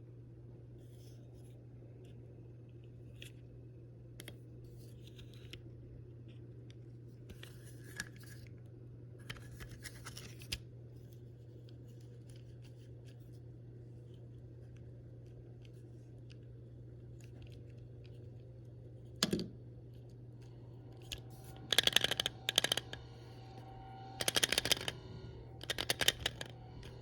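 Seatbelt retractor parts being handled: scattered light clicks and scrapes, then, near the end, two bursts of rapid sharp clicking.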